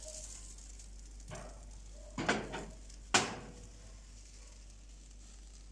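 Cookware handling as a dosa is flipped in a frying pan on a gas burner. Under a low steady hiss there are a few soft handling sounds and one sharp knock of the pan or utensil about three seconds in.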